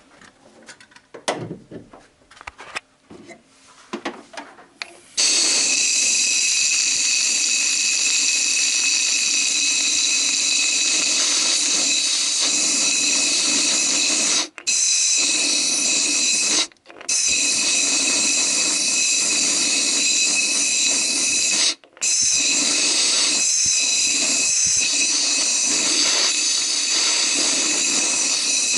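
Compressed-air blow gun at 8–10 bar blasting into a freshly tapped spark plug hole in an aluminium cylinder head, blowing out the swarf. The loud steady hiss starts about five seconds in and breaks off briefly three times, after a few light handling clicks at first.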